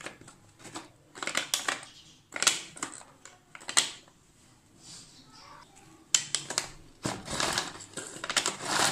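Manual pull-cord food chopper (Smart Pull n Chop) pulled several times, each pull spinning the blades through vegetables in the plastic bowl as a short clattering, clicking burst. The pulls come closer together near the end.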